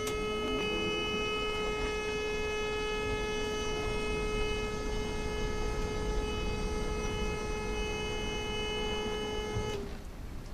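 A steady, unwavering tone with a full set of overtones, held for about ten seconds and then cutting off abruptly near the end.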